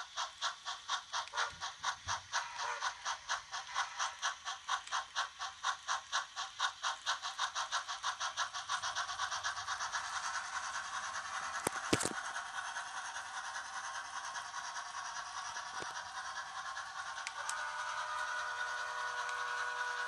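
HO scale steam locomotive's DCC sound decoder playing steam chuffs through its small speaker, about three a second at first and quickening as the engine gathers speed until they blur into a steady hiss. There is a sharp click about twelve seconds in, and a steady pitched tone joins near the end.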